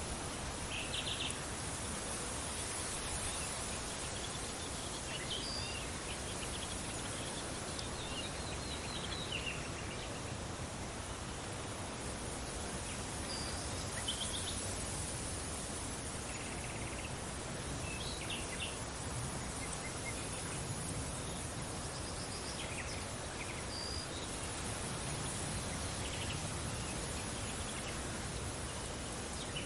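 Steady wind noise, with short high chirps of birds and insects every few seconds.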